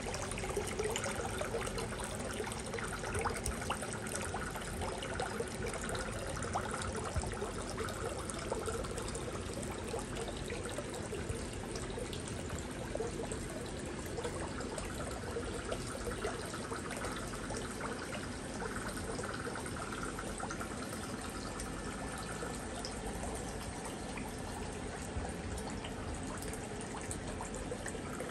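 Water trickling and dripping steadily into a small pond, with a constant patter of little drips.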